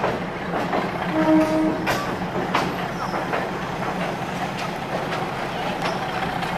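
Passenger train carriage running along the track, heard from an open window: a steady rumble with the wheels clicking over rail joints now and then, and a short steady tone about a second in.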